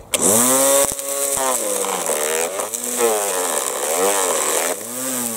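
Electric string trimmer (strimmer) spinning up and running with its head plunged into a bucket of leaf litter, the nylon line shredding the leaves with a loud hissing rattle. The motor pitch sags and recovers again and again as the leaves load it. Kind of noisy and sort of violent.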